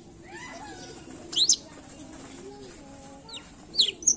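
Blackthroat (black-throated canary) singing in short, high, sweeping chirps: a faint falling phrase early, a loud double chirp about a second and a half in, and quick chirps building again near the end.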